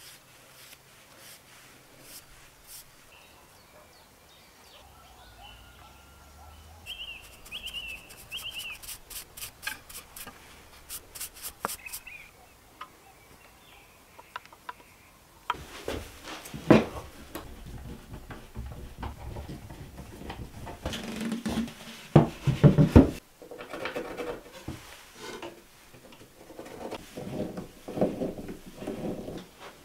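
Hand tools working small wooden parts: scraping and rubbing on wood, with runs of light clicks and taps. It grows louder about halfway through, with a few sharper knocks.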